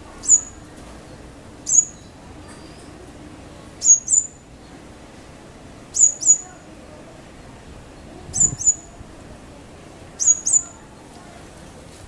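Male purple-rumped sunbird calling: sharp, very high chip notes that drop quickly in pitch. Two come singly, then four quick pairs follow, about every two seconds.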